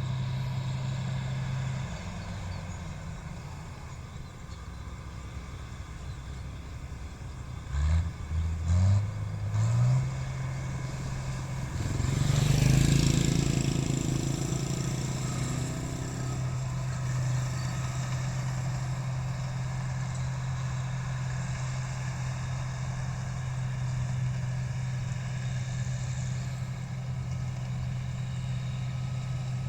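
Rice combine harvester engine running steadily, revving up in three short rising bursts about eight to ten seconds in, then a louder spell of noise a few seconds later before it settles back to a steady run.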